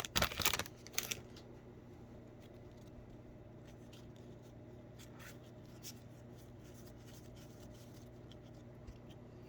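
Trading cards being handled and flipped through by hand: a short burst of rustling in the first second, then only faint, scattered card clicks over a low steady hum.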